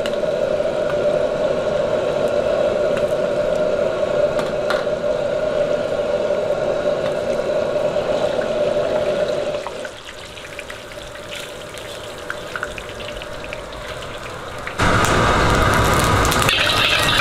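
Shrimp balls deep-frying in hot oil in an iron wok, a steady sizzling that drops quieter about ten seconds in as they are lifted out, leaving a softer bubbling with light crackles. Near the end a sudden loud rushing noise starts.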